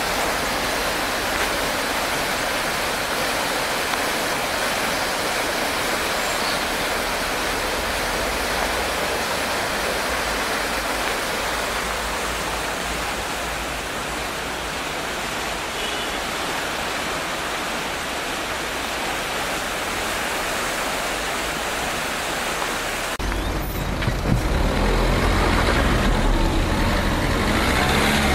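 Rushing water of a river in flood, a steady roar of noise. About two-thirds of the way in it cuts to a car engine running close by, louder and with a low rumble.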